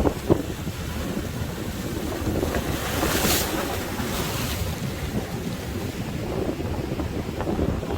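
Sea waves breaking and washing ashore, with strong wind buffeting the microphone in a low rumble. The hiss of the surf swells up about three seconds in and again a second later.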